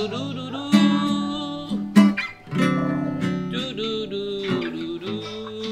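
Acoustic guitar being strummed, with a voice singing along in places, the opening of a home-made song.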